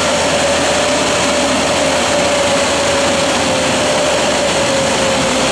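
Oscillating fan orchard sprayer rig running while spraying: a loud, steady rushing noise with a constant whine that sags slightly in pitch.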